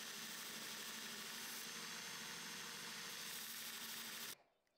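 Belt grinder running, its abrasive belt grinding a steel pommel and throwing sparks: a steady hiss with a faint motor hum. It cuts off suddenly near the end.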